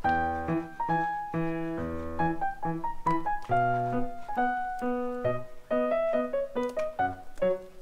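Background music: piano or electric keyboard playing a quick, light melody of short notes.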